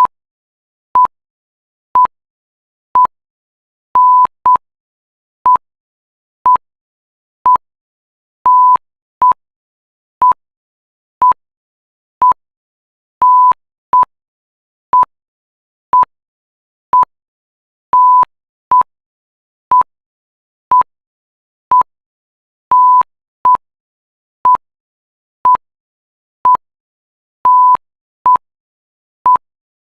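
Electronic alarm beeping: one high, pure tone in short beeps about once a second, with a longer beep every four to five seconds.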